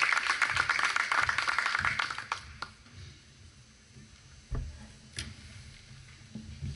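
Audience applause, many hands clapping, dying away about two and a half seconds in; after that only a few scattered claps and knocks.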